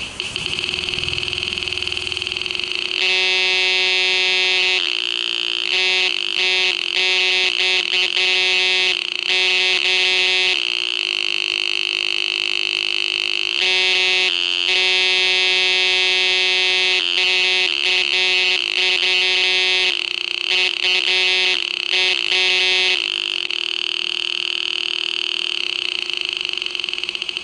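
A homemade transistor oscillator circuit buzzing through a small loudspeaker: a harsh electronic tone, its pitch and pulse rate set by a potentiometer. Through the middle it cuts in and out in short breaks, then runs on steadily near the end.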